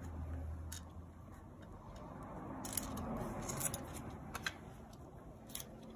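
Soft sounds of handling paper and planner supplies: a faint rustling scratch with a few light clicks and taps scattered through it.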